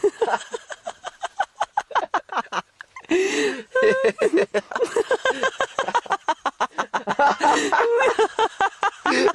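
A young man laughing helplessly while being tickled: rapid bursts of giggling breath, growing louder from about three seconds in.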